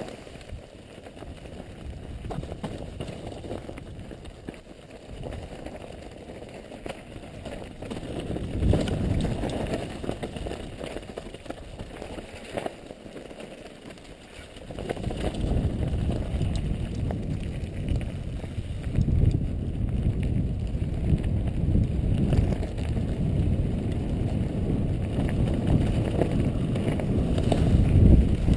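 Mountain bike descending a rough trail, heard from a helmet camera: a steady rumble and rattle of tyres and frame over gravel, dirt and leaf litter, with wind on the microphone. It grows much louder and rougher about halfway through as the pace picks up.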